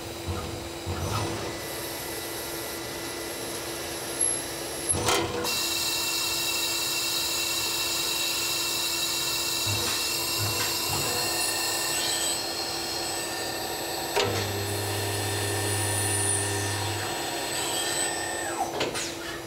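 Citizen Cincom B16E Swiss-type sliding-headstock automatic lathe running, cutting a brass workpiece: a steady machine hum under several high spindle and cutting whines. The sound changes abruptly a few times with a click as it moves between operations: threading, screw machining and cut-off.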